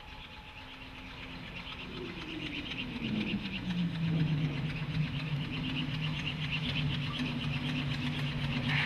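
Steam locomotive approaching, growing steadily louder, with a quick, even rhythmic beat in the upper range. A low hum slides down in pitch from about two to four seconds in, then holds steady.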